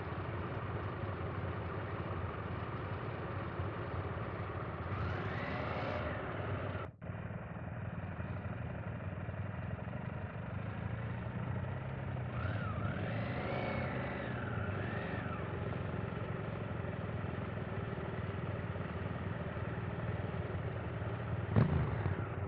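KTM 890 Adventure R's parallel-twin engine running at low speed off-road, the revs rising and falling a few times. There is a brief louder sound near the end.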